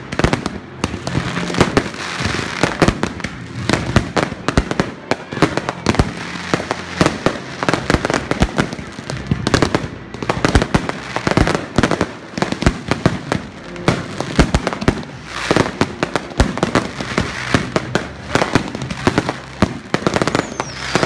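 Fireworks and firecrackers going off in dense, rapid succession: a continuous barrage of bangs and crackles, with a short falling whistle near the end.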